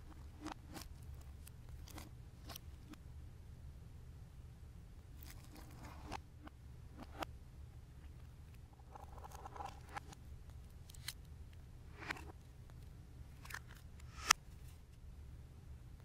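Hands squeezing and kneading clear slime with blue putty worked into it, giving scattered sticky clicks and small pops, one sharper click about fourteen seconds in, over a steady low hum.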